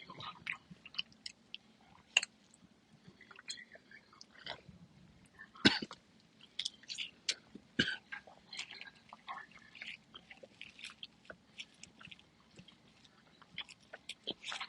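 Close-up chewing: wet, irregular mouth smacks and clicks as a mouthful of macaroni salad with lettuce and ham is chewed, with a few sharper smacks about 2, 6 and 8 seconds in.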